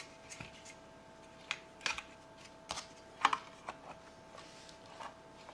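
Metal Altoids tin being handled and its hinged lid closed over a fabric-lined insert: a few light clicks and taps, the sharpest about three seconds in, over a faint steady hum.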